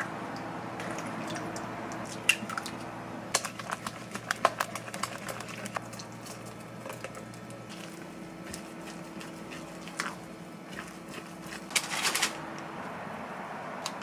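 Spatula stirring and scraping a thick oatmeal dough in a glass mixing bowl, with a run of clicks and taps against the glass. A short clatter of taps comes near the end as the dough is scooped out. A steady low hum runs underneath.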